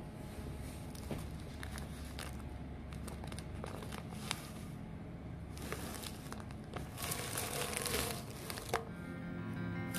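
Masking tape and masking paper being peeled and crumpled off a freshly airbrushed motorcycle panel: irregular crinkling and crackling with small ticks, heaviest a few seconds before the end. Music comes in near the end.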